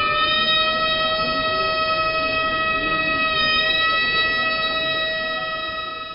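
Three Japanese transverse flutes playing a long held high note together, the players slightly apart in pitch, fading toward the end.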